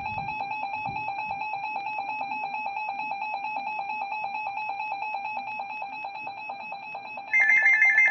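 Electronic alert tones over NOAA Weather Radio: a steady, buzzy tone that pulses slightly. About seven seconds in it switches to a louder, higher warble between two pitches, typical of the digital SAME data burst that opens an EAS alert.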